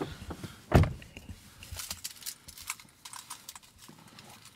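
Someone getting into a Toyota 4Runner's driver seat: a single heavy thump about a second in, then a scatter of light clicks and taps.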